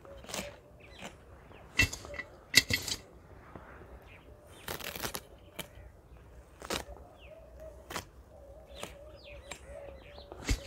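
Carrot tops being cut by hand with a knife: irregular snaps of stems and leafy rustling, the loudest snaps about two to three seconds in. Birds chirp faintly in the background.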